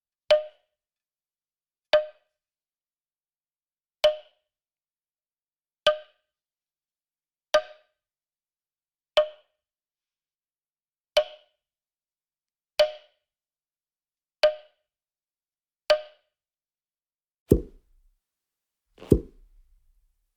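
Cartoon sound effect: a series of ten sharp, hollow, pitched knocks, one about every one and a half to two seconds, followed near the end by two deeper, duller thuds.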